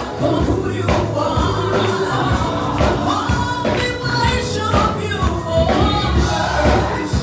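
Live gospel song: a lead singer and backing vocalists singing together over a live band with bass and drums.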